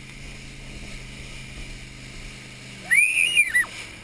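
Motorboat engine running steadily, then dropping away about three seconds in as the boat stops. Right after, a loud, high-pitched squeal rises and falls for under a second.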